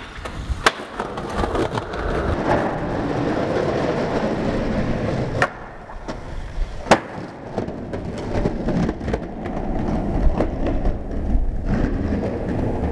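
Skateboard wheels rolling over concrete, with sharp clacks of the board hitting the ground: one about half a second in, then two more around five and seven seconds in, the last the loudest.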